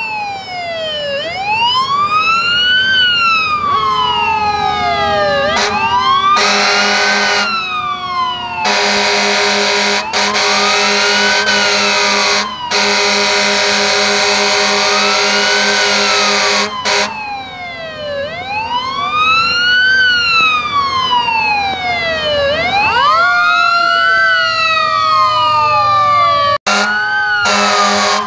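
Fire engine sirens wailing, rising and falling in pitch about every three seconds, with several overlapping in the second half. Long blasts of fire truck air horns sound over them several times, the longest lasting about eight seconds.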